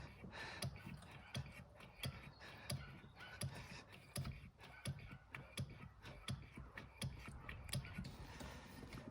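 Hand primer pump on the fuel filter housing of a Nissan Navara D22 2.5 diesel being worked by hand, a faint click and low thump about every three-quarters of a second. It is pushing fuel back into the new filter and fuel system after the filter change.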